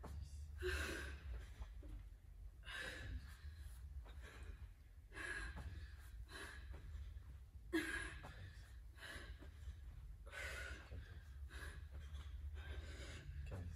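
A woman breathing hard through a set of sit-ups, a sharp breath out about every two and a half seconds, over a steady low hum.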